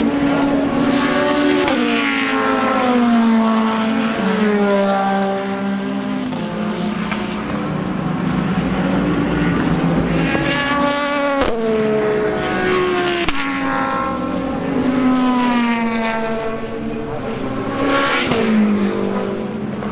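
Prototype race cars driving past one after another at speed, each engine note sweeping down in pitch as it goes by. A sharp click about eleven and a half seconds in.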